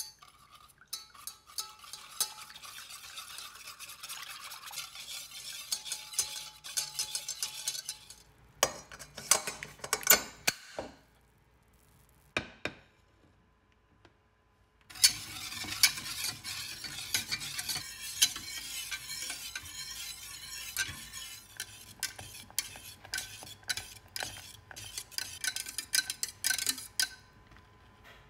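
Wire whisk beating a thin liquid mixture in a stainless steel saucepan, with rapid clinks and scrapes of the wires against the metal sides. There are a few louder knocks around ten seconds in and a few seconds' pause, then brisk whisking again as the lemon cream cooks and thickens on the hob.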